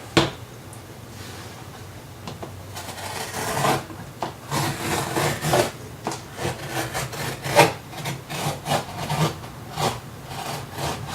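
A blade sawing and scraping at plastic packaging: a run of irregular rasping strokes, several a second, starting a few seconds in, after a sharp click near the start.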